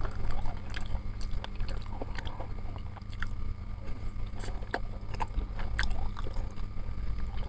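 Close-up mouth sounds of a person biting grilled chicken satay off a bamboo skewer and chewing it, with small irregular wet clicks, over a steady low hum.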